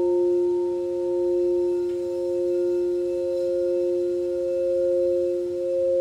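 Singing bowl sounding a sustained ringing tone with a few steady overtones, its loudness gently swelling and ebbing about every second and a half.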